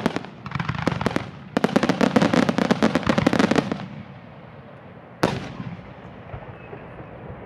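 Closing barrage of a Japanese starmine fireworks display: a dense rapid run of launches, bangs and crackle for about four seconds, then a lull and one last loud bang about five seconds in, echoing as it dies away.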